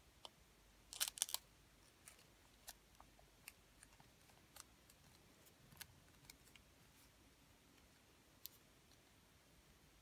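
A sheet of origami paper being folded and creased by hand: faint, scattered crinkles and ticks, with a brief cluster of sharper paper crackles about a second in.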